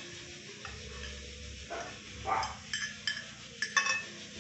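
A metal utensil clinking several times against a glass plate, in a quick cluster of sharp, briefly ringing clinks about three seconds in, after some softer handling sounds.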